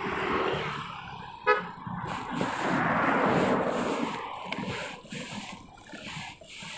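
A car horn gives one short toot about a second and a half in, then a car passes close by, its noise swelling and fading.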